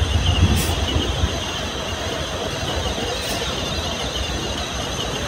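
A soil-laden công nông farm truck driving along, its engine running with a low rumble that is strongest in the first second or so, then settling into a steady, even noise.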